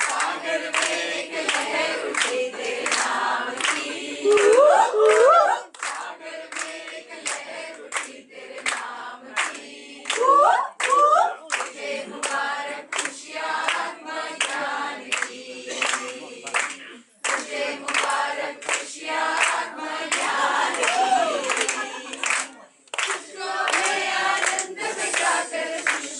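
A group of voices singing together, with steady rhythmic hand-clapping keeping time.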